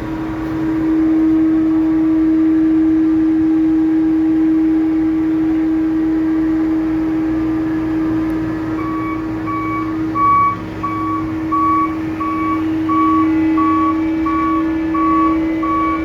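Heavy port machinery running with a steady, loud hum. About nine seconds in, a vehicle's warning beeper starts, beeping evenly a little under twice a second, like a reversing or travel alarm.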